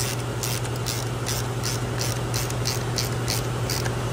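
Ratchet wrench clicking as it is cycled, about three clicks a second, turning a bolt on a long extension into a newly installed thread insert in a Subaru EJ25 engine block. It runs over a steady low shop hum.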